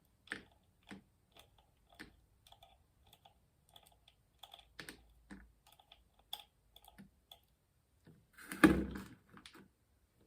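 Loose steel ball bearings and small hub parts clicking and tapping as they are handled and dropped into a parts-washing container, with one louder clatter and thump about eight and a half seconds in.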